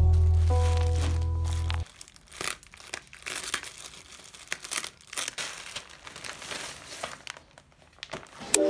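Plastic mailer bag crinkling and rustling in irregular crackles as it is handled and opened. Background music stops about two seconds in and comes back near the end.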